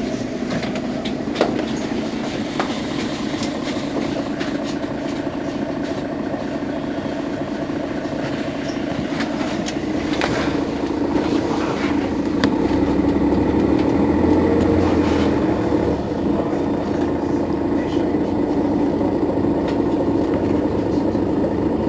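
Mercedes-Benz Citaro Facelift city bus engine idling at a stop, a steady hum. It grows louder a little past the middle, with a deeper rumble for a few seconds, and there are a couple of short clicks near the start.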